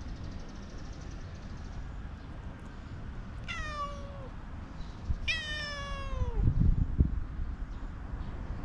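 Orange tabby domestic cat meowing twice, each meow falling in pitch, the second longer than the first. A few dull low thumps follow the second meow.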